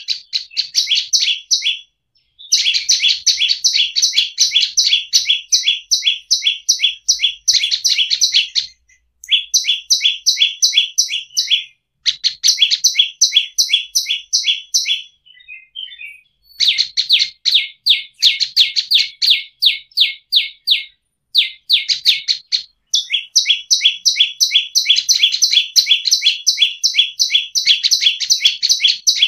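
Prenjak lumut (a prinia) singing in full voice: long runs of rapid, sharp chirping notes in phrases several seconds long, broken by short pauses.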